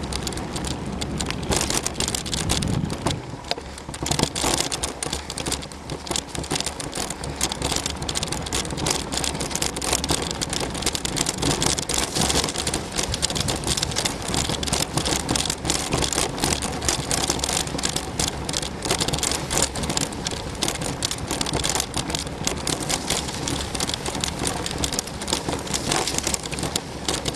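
Mountain bike being ridden along a woodland dirt trail, made slippy by rain: a steady rush of tyres on the track with rapid clicks and rattles over bumps.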